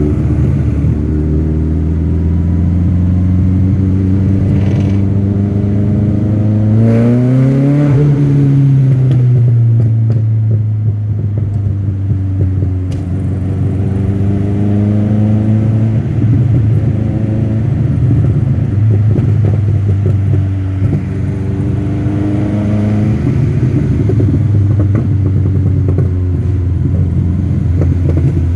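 TVR Cerbera 4.5's V8 engine running at a steady low note, with the revs rising and falling about seven seconds in and a gentler rise and fall later on.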